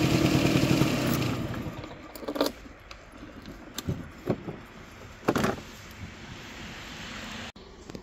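Keys jangling and several sharp clicks as a scooter's front storage compartment is unlocked with its key and opened, over a steady mechanical noise that is loudest at first and fades over the first two seconds.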